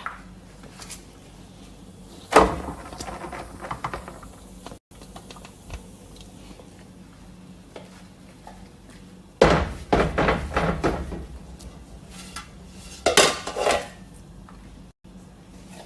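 A metal cooking pot and serving dishes clanking and scraping as a pot of mandi rice is turned out onto a platter. There is a sharp knock about two seconds in, a stretch of clattering around nine to eleven seconds, and another burst around thirteen seconds.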